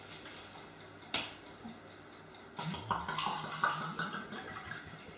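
A sharp click about a second in, then white wine (Weißburgunder) gurgling as it is poured from a glass bottle into a glass for about two seconds.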